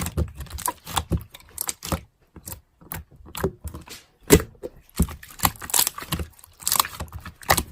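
A quick, irregular run of sharp clicks and taps, with a few louder knocks, one about four and a half seconds in.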